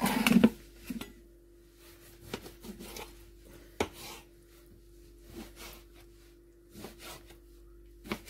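Kitchen knife cutting raw pork into cubes on a cutting board: a louder clatter at the start, then sparse, irregular taps of the blade on the board.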